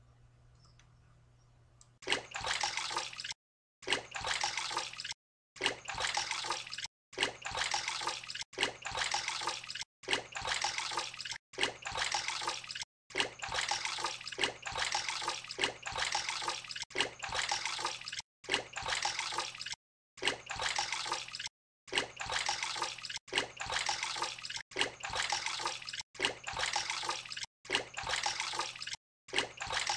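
Water sloshing and running like a filling bath, starting about two seconds in. It goes in stretches of about a second and a half, each cut by a brief silent gap, as a looped water sound would.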